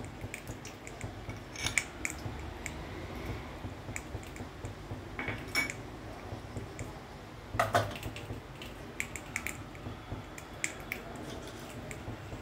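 Scattered light clinks and taps of a steel spoon against a glass bowl and a non-stick kadai as oil is spooned into the pan, over a faint steady low hum.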